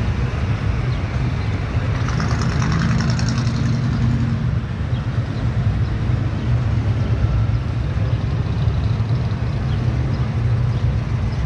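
Steady low rumble of a vehicle engine idling, with a brief higher sound about two to four seconds in.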